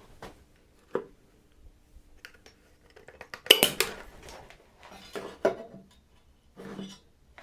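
Scattered clinks and knocks of hard objects being handled, the loudest cluster about three and a half seconds in.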